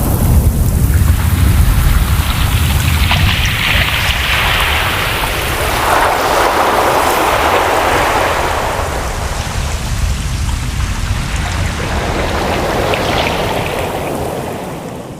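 Ocean surf: waves breaking and washing in with a low rumble, the hiss swelling in surges and falling away near the end.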